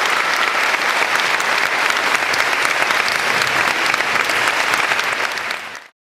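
Theatre audience applauding, a dense clatter of many hands clapping that fades out quickly near the end.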